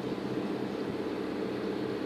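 Crane vessel's diesel engine running steadily under load while hoisting a concrete wave-dissipating block, a continuous low droning hum made of several steady tones.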